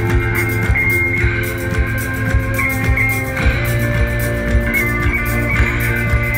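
Live rock band playing an instrumental passage: electric guitar and bass over a steady drum beat. The held chord changes about three and a half seconds in.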